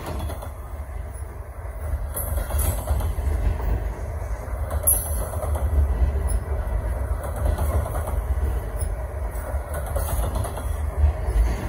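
Covered hopper cars of a freight train rolling past close by: a steady rumble of steel wheels on the rails, with a few sharp clicks and clanks.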